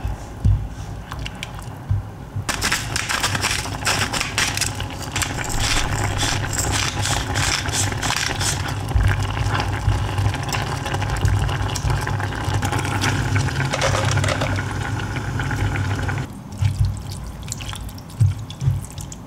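Curry broth boiling and bubbling in a saucepan while a silicone spatula stirs through it. The bubbling turns dense and crackling about two and a half seconds in and falls away again near the end.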